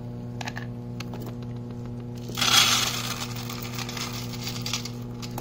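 Dry cat kibble poured from a metal canister into a plastic bowl. The pellets rush out in a loud rattling clatter a little over two seconds in, then thin to scattered patters near the end. A steady low electrical hum runs underneath.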